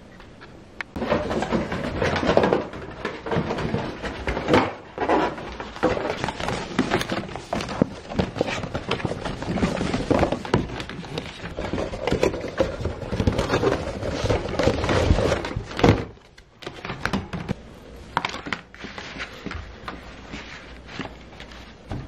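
White cardboard boxes being handled and set down on a table: repeated thunks, knocks and scraping, quieter and sparser after about sixteen seconds.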